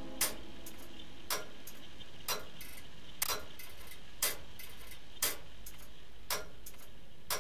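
Clock ticking, one sharp, even tick about every second over a faint steady hiss.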